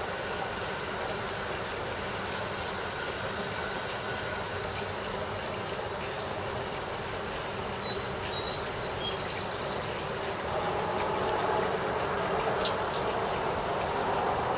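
Steady outdoor background noise, a mix of low rumble and hiss, that grows louder about ten seconds in. A few faint high chirps come near the middle.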